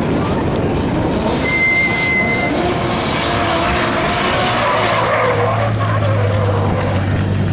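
Drift cars' engines running and revving under a steady din of tyre noise, with a brief high squeal about two seconds in. A steady low engine hum takes over from about five seconds in.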